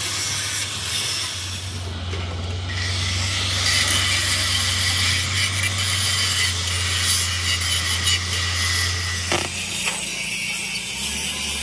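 Handheld angle grinder cutting steel: a steady high whine under a harsh grating hiss, which breaks off briefly about two seconds in and ends about nine seconds in.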